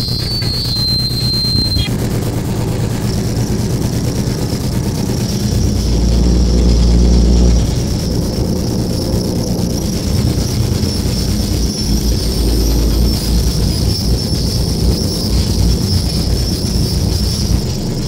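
Live electronic noise music: a loud, dense wall of harsh noise with a thin, steady high whine that comes in about three seconds in and holds. Under it runs a low rumble that swells heavily around six seconds in and again around twelve.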